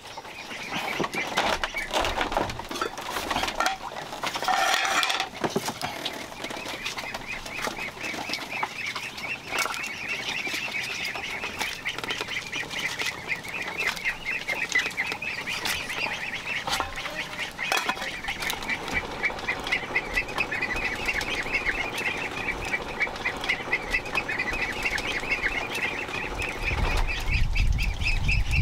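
A flock of domestic ducks calling, with a long run of quick repeated calls through most of it.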